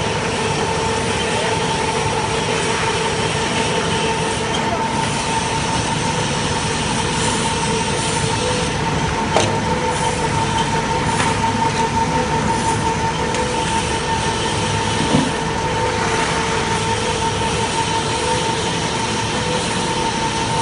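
Square-charcoal briquette extruder and conveyor running: a steady mechanical noise with a constant whine on two pitches. A couple of short sharp knocks come through, one about nine seconds in and another about fifteen seconds in.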